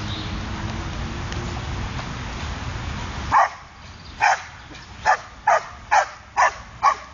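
Podenco dog barking seven times in short, sharp barks, speeding up to about two a second near the end. The barking starts about three seconds in, after steady low background noise.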